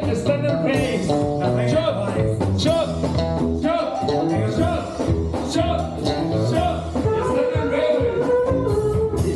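Live band music: an accordion melody over bass and drums, with a singing voice.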